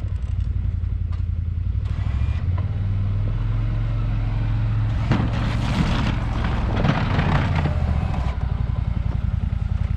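Polaris RZR side-by-side engine running steadily at a low throb while plowing snow. From about five to eight seconds in, a louder rushing, scraping noise rises over it.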